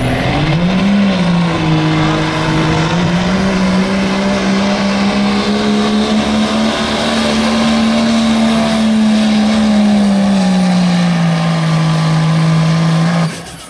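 Diesel pickup truck engine at full throttle pulling a sled: a loud, steady drone that climbs in pitch over the first second, holds, then sags in the last few seconds as the truck bogs down. It cuts off abruptly near the end.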